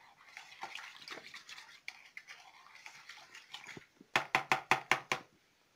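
A spoon stirring warm milk with sugar and yeast in a bowl: soft liquid swishing, then about four seconds in a quick run of about eight sharp clicks as the spoon strikes the side of the bowl.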